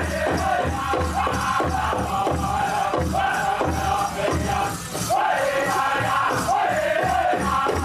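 Powwow drum group singing a chicken dance song in high voices over a quick, steady beat on a shared big drum.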